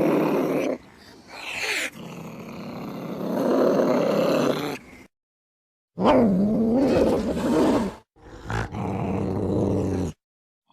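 Cat yowling and growling: a string of long, drawn-out cat calls with wavering pitch, several separate calls cut off abruptly by short silent gaps.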